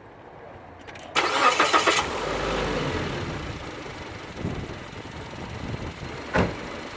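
2003 Mazda Protege engine starting: the starter cranks briefly about a second in, the engine catches, and its revs fall as it settles toward idle. It starts now that new battery cable terminals give the battery a good connection. A short knock comes near the end.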